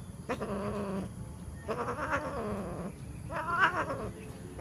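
Domestic cat yowling during mating: three long, wavering calls.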